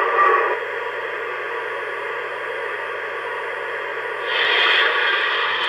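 O-gauge model freight train running on three-rail track: a steady hiss and rumble over a faint hum, swelling louder about four seconds in.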